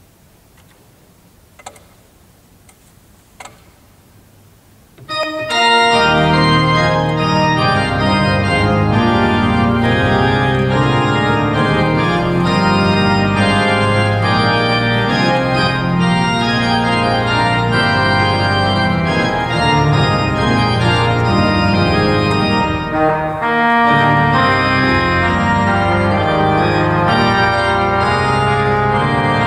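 A few faint clicks, then about five seconds in the organ enters loudly and plays sustained chords: a dialogue between the organ's tuba and trumpet stops.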